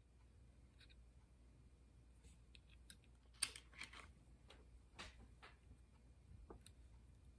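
Faint, scattered clicks and taps of small metal hardware being handled: hex socket head bolts picked from a clear plastic parts case, the sharpest click about halfway through.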